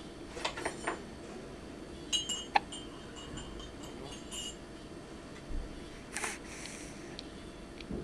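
A baby hiccuping, short sharp catches every second or two. Between them come light clinks with a brief ringing tone.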